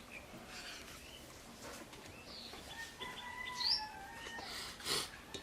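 Small birds chirping, with short high chirps and a brief two-note whistle about three seconds in. A short, sharp noisy burst about five seconds in, the loudest moment.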